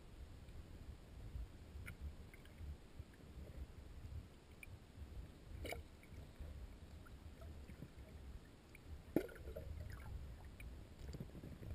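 Muffled underwater sound of a shallow river heard through a sealed camera housing: a low, uneven water rumble with scattered faint clicks and ticks, and one sharper knock about nine seconds in.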